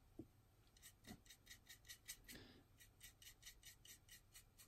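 A small flat paintbrush scrubbing quickly over the painted plastic tail of a scale model aircraft, working in oil weathering streaks, with faint, even strokes about five a second. A few soft low thumps come in between.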